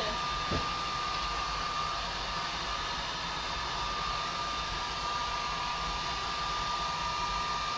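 Handheld hair dryer blowing steadily, with a thin steady whine over its rushing air, switched off near the end.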